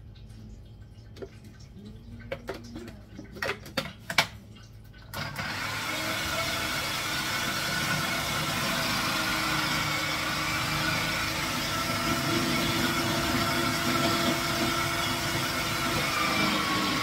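Electric squash grater (food-processor type): a few plastic clacks and knocks, then about five seconds in its motor starts suddenly and runs steadily while pieces of squash are pushed down the feed chute and shredded.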